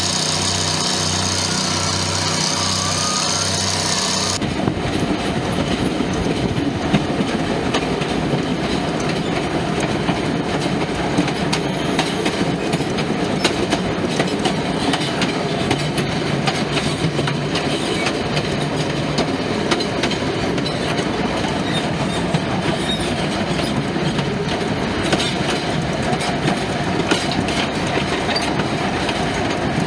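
A train rolling along the track, with a steady rumble and many small clicks from the wheels. It begins with an abrupt change about four seconds in, replacing a steady, pulsing pitched sound.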